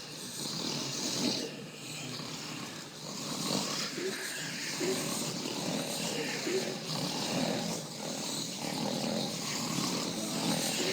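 Many men snoring at once: a dense, steady chorus of overlapping snores.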